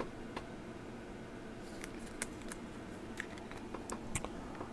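Faint, scattered small clicks and light handling noises of trading cards being slid into plastic card sleeves, over a low steady room hum.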